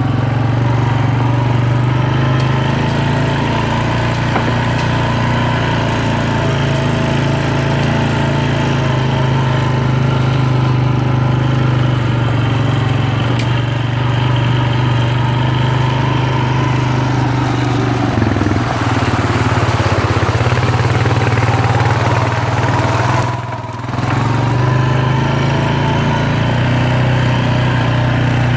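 ATV engine running at a steady low trail speed. Its note shifts around 18 seconds in, and its level drops briefly for about a second near the end before picking up again.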